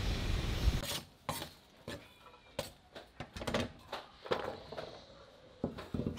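Steady street noise for about the first second, then scattered knocks and clinks as peeled garlic cloves are tipped out of a small stainless steel tray onto a wooden chopping board.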